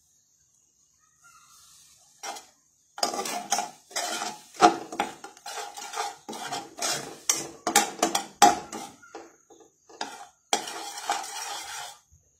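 A spatula stirring melting butter in a metal wok, scraping and knocking against the pan with a ringing metallic tone. Quick repeated strokes start about two seconds in, pause briefly near the end, then resume.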